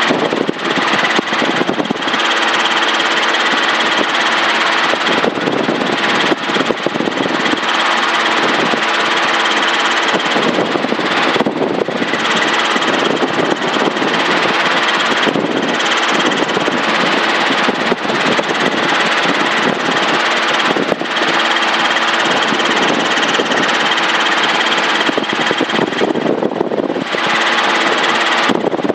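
Helicopter engine and rotor running in flight: a dense, steady drone with a few brief dips in level.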